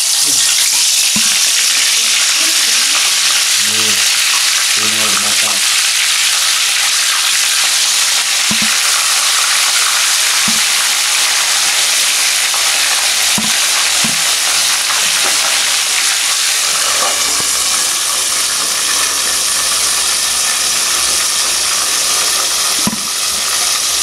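Hot oil sizzling steadily as whole plucked egrets deep-fry in a small wok on a portable gas stove.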